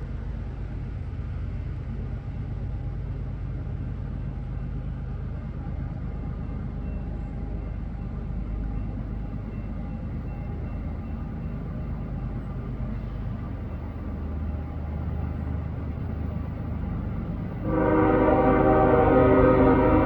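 Low, steady diesel rumble of an approaching GE freight locomotive consist. About 18 seconds in, the lead locomotive's Nathan K5HL five-chime air horn sounds a loud, steady chord, the warning for the grade crossing it is approaching.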